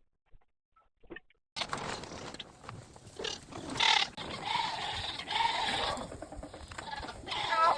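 Nigerian Dwarf goats bleating, with shuffling and knocking noises among them. The sound starts abruptly about a second and a half in, after near silence, and a wavering bleat comes near the end.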